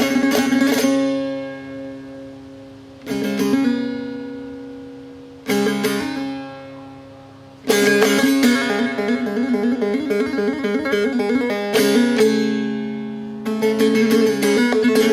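Solo Persian dutar, its two strings plucked and strummed by hand: a quick run of strokes, then twice a single chord struck and left to ring and fade, then fast, busy strumming resumes about halfway through, broken once by another held, ringing chord.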